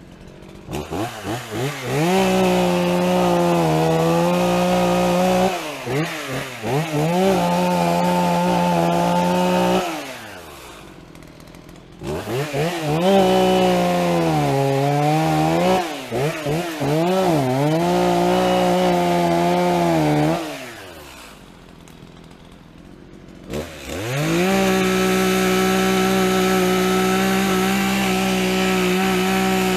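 Two-stroke chainsaw cutting through a downed tree. It revs to full throttle in three long cuts, its pitch sagging as the chain bites into the wood, and drops back to idle between cuts.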